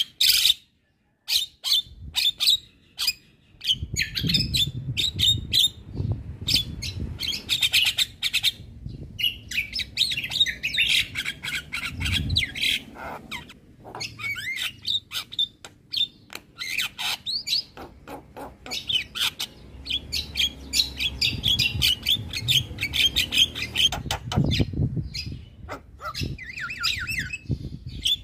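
Javan myna (jalak kebo) singing nonstop: a rapid string of harsh squawks, chirps and whistled notes, over a low background rumble.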